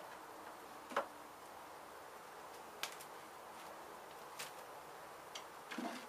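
Faint steady hum of honeybees at a hive opened in a wall, with a few sharp clicks or taps at irregular intervals, the loudest about a second in.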